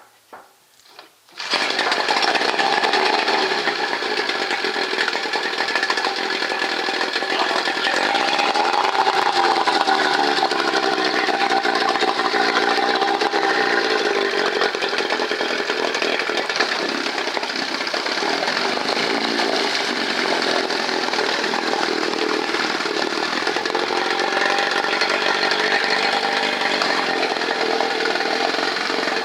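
Mercury Force 9.9 hp two-stroke outboard engine. After a few faint clicks it catches about a second and a half in, then runs steadily, its pitch rising and falling a few times in the middle.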